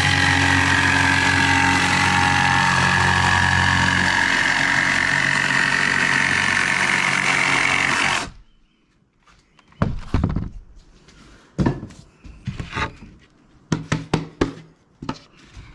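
Jigsaw cutting through a plywood floor panel, running steadily for about eight seconds and then stopping abruptly. After it stops come a few scattered knocks and thuds as the cut boards are handled.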